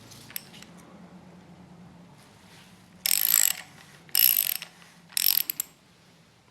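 Ratchet wrench clicking in three short bursts about a second apart, undoing the rocker cover nuts on an engine.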